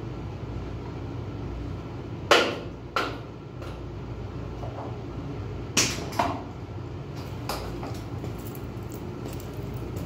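Sharp clunks and knocks of UPS battery blocks being handled on a metal battery rack, loudest about two seconds in and twice near six seconds, with a few lighter taps. A steady low hum lies underneath.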